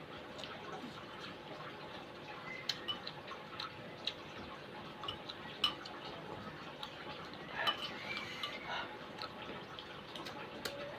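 A metal spoon clinking and scraping against a bowl of soto noodle soup in scattered light clicks, with a denser run of eating noises about two-thirds of the way through. A faint steady hum sits underneath.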